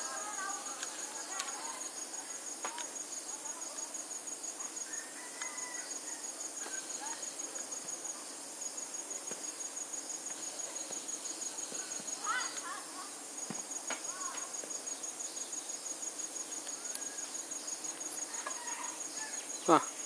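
An insect trilling at a high pitch in a fast, even pulse, stopping briefly a few times, with a short louder sound just before the end.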